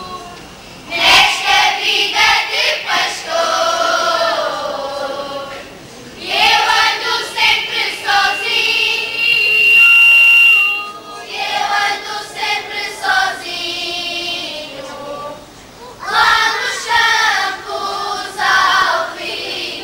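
Children's choir singing cante alentejano unaccompanied, in phrases with short breaks between them; one long held note near the middle is the loudest point.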